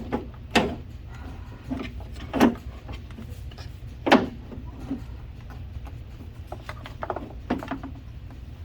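Parts being worked inside a car door during reassembly: irregular knocks and clunks, the loudest about half a second, two and a half and four seconds in, over a steady low hum.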